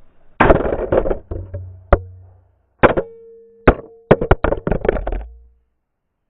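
A series of sharp knocks and clatters in irregular clusters, the loudest near the start, with a faint steady hum between some of them.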